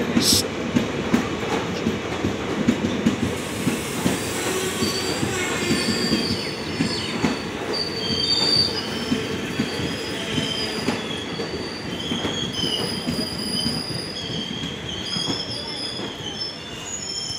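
Passenger train coaches rolling slowly past on arrival, wheels rumbling and knocking over the rail joints. From about four seconds in, high-pitched wavering squeals come from the wheels under braking as the train slows.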